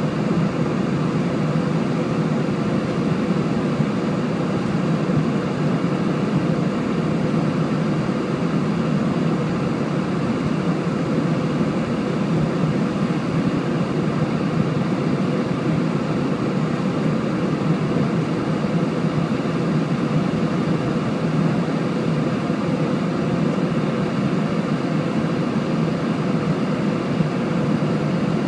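Steady cabin noise inside an Airbus A320 in flight after take-off: the even drone of the engines and rushing airflow, with a faint steady hum, unchanging throughout.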